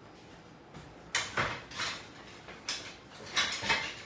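About six short scraping and knocking noises, from cucumber and onion slices being pushed and packed into a glass jar.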